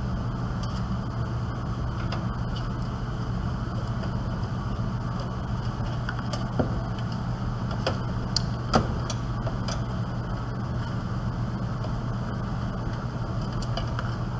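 Scattered light metallic clicks and taps from screws, a screwdriver and the sheet-metal computer case being handled while the power supply is taken out, over a steady low hum in the room.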